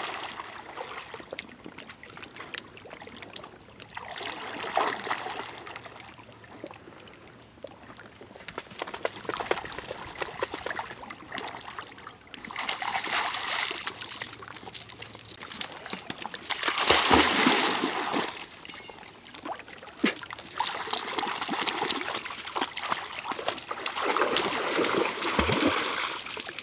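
Dobermans wading and splashing through shallow lake water, in repeated bouts of splashing that come and go every few seconds, loudest about two-thirds of the way through.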